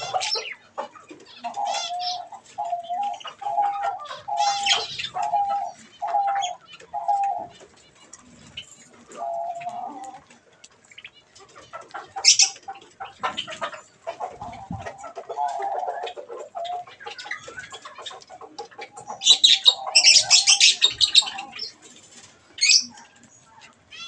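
Doves cooing in a run of about eight evenly spaced notes, then again later, with budgerigars chirping and chattering in short high-pitched bursts that are loudest about two thirds of the way through.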